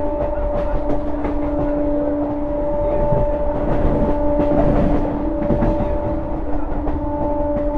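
Electric multiple unit (EMU) local train running at speed, heard from the open doorway on board: wheels clattering over rail joints and points, under a long, steady horn note held almost throughout.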